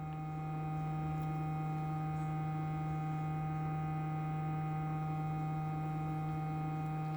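Steady electrical hum: one strong low tone with several fainter steady overtones, unchanging throughout.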